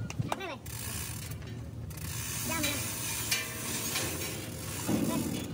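Steel chain on a hoist pulley, squeaking and rattling, over a steady low workshop hum.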